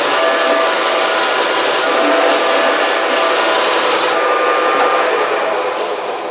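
Harbor Freight bench sander running with a wooden template held against it: a steady, loud whir with the hiss of grit on wood. The high hiss stops about four seconds in, and the motor winds down near the end.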